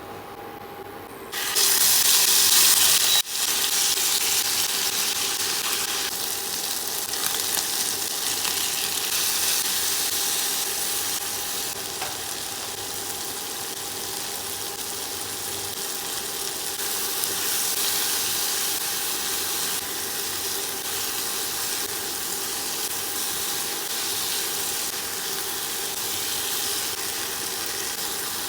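Food sizzling as it fries in hot oil in a pan: a loud burst of sizzle starts suddenly about a second in, then settles into a steady frying hiss.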